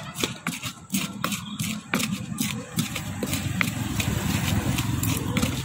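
Wooden pestle (ulekan) pounding and grinding green chilies, shallots and garlic in a shallow cobek mortar: irregular sharp knocks and scrapes, several a second. An engine idles steadily underneath.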